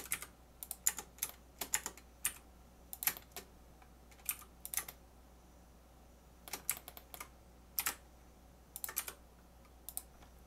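Computer keyboard keys tapped in short, irregular clusters, with a pause of about a second and a half midway.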